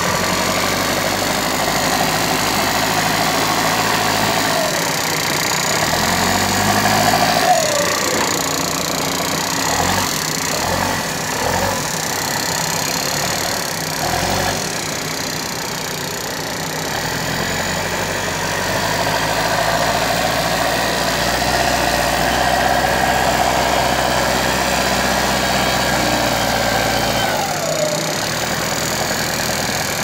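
Escorts backhoe loader's diesel engine working under load as the front bucket pushes and lifts soil. It revs up a few seconds in and drops back at about seven seconds, then revs up again from about twenty seconds and drops back near the end.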